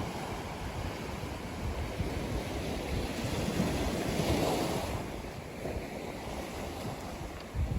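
Ocean surf on a beach: a steady wash of waves, with one wave swelling to a peak about halfway through and then easing back. A low rumble of wind on the microphone runs underneath.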